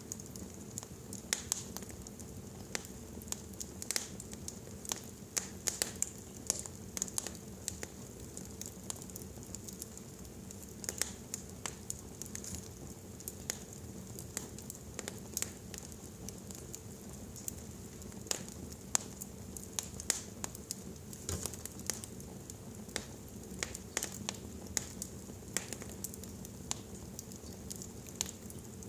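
Wood fire burning in a fireplace, with irregular sharp crackles and pops over a steady low hiss.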